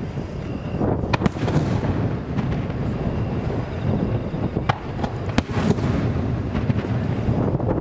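Fireworks bursting: several sharp cracks, a pair about a second in and two more around the middle, over a continuous low rumble of strong wind buffeting the microphone.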